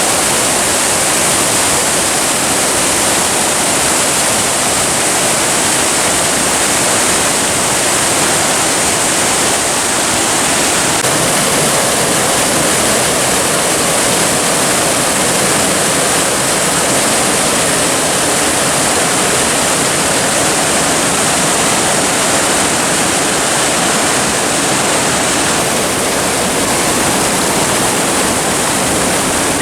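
Rushing water of a gorge's mountain stream and waterfalls, a steady unbroken roar.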